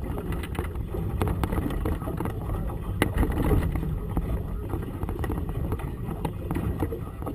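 Wind buffeting a camera microphone on a small boat, with choppy water slapping the hull in irregular knocks and thumps.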